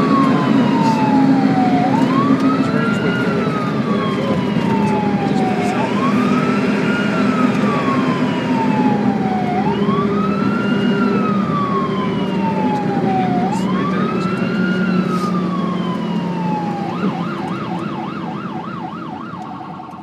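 Ambulance siren in a slow wail, each cycle rising quickly and falling slowly about every four seconds, over a steady low vehicle rumble. Near the end it switches to a fast warbling yelp and fades out.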